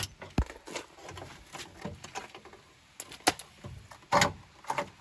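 Irregular light knocks and clicks of hands-on work on a car's rear bodywork, with a louder clunk about four seconds in.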